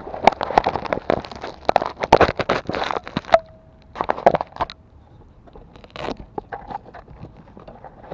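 Crunching footsteps on gritty asphalt close to the microphone, dense for the first three seconds and then thinning out. A short steady tone sounds about three and a half seconds in.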